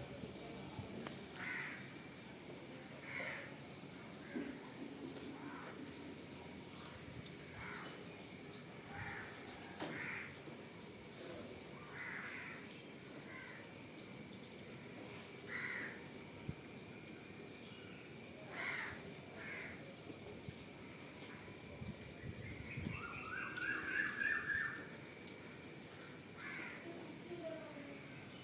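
Birds calling outdoors: short calls repeated every second or two, with a quicker run of chirps about 23 seconds in. A steady high-pitched whine runs underneath.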